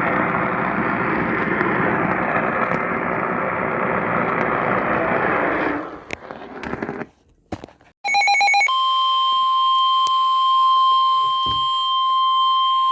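Weather radio receiver hiss for about six seconds, breaking up and dropping out. About eight seconds in, a brief choppy burst of data tones, then a steady single-pitched weather-alert tone: the signal that a new warning broadcast is starting.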